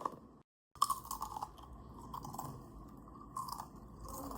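A person chewing crunchy potato chips, with crisp crackling bites, broken by a moment of dead silence about half a second in.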